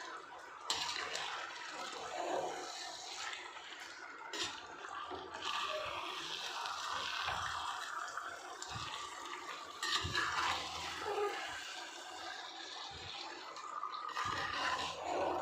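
Chicken pieces sizzling in hot oil and masala in a clay pot as they are stirred, a steady hiss with a few knocks of the spoon against the pot.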